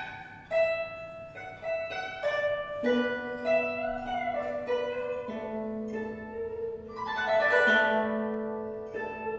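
Guzheng played with single plucked notes ringing over a low held note, one note bent up and back in pitch about four seconds in, then a swell of many quick notes across the strings around seven seconds in.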